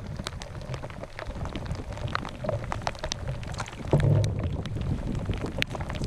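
Rain falling, with many sharp, close drop hits over a steady low rumble; a dull thump about four seconds in.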